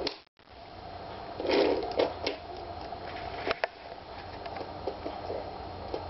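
A budgie playing in its cage: a brief rustle and a few scattered sharp clicks and taps over a steady background hiss, with a short cut in the sound just after the start.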